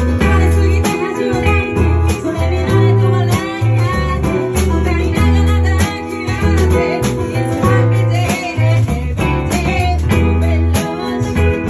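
A band playing live: guitar over a heavy bass line and steady drum hits.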